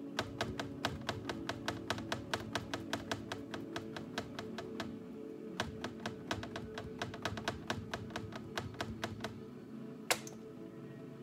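Paintbrush bristles tapped rapidly against a stretched canvas, several quick taps a second in two runs with a short pause between, and one sharper knock near the end. Music plays in the background.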